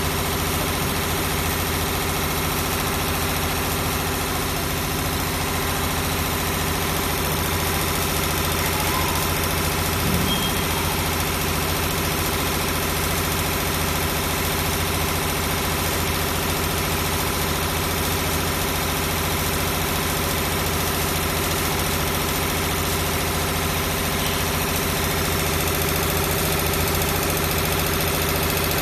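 Six-spindle CNC needle winding machine running at high speed, winding wire onto brushless-motor stators: a steady mechanical hum with several held tones.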